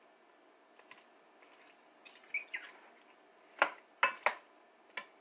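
Wooden spoon stirring stew in an enamelled pot, knocking sharply against the pot four times in the second half. A couple of short high squeaks come about two seconds in.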